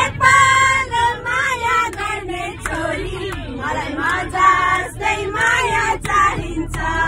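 Several voices singing together over the low, steady rumble of a bus engine.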